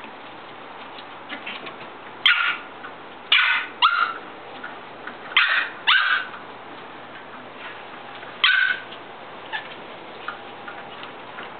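Shetland sheepdog puppies giving short, high-pitched yips: six in all, starting about two seconds in, two of them in quick pairs.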